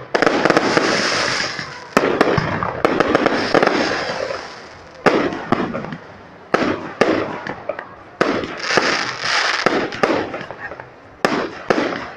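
Aerial fireworks shells bursting overhead: about ten sharp bangs at irregular intervals of roughly one to two seconds, each followed by a hiss that lasts a second or two.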